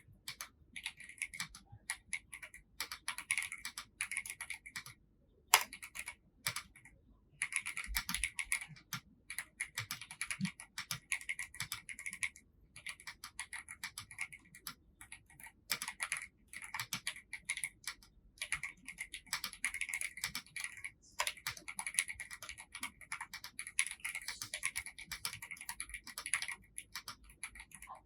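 Keys of a VGN N75 Pro mechanical keyboard being typed on in continuous runs of clicky keystrokes, with a few short pauses.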